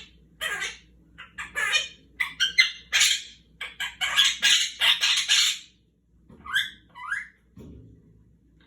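Quaker parrot chattering and squawking in quick bursts for the first five or so seconds, then giving two short rising whistles near the end.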